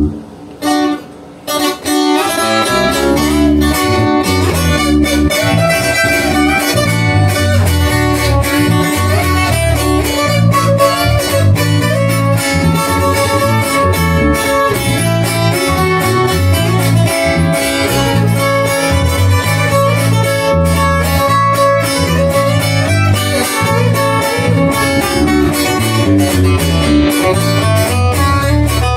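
Acoustic guitar playing a corrido's instrumental introduction, with a rhythmic bass line underneath. A few soft notes come first, then the full playing starts about two seconds in and keeps up steadily.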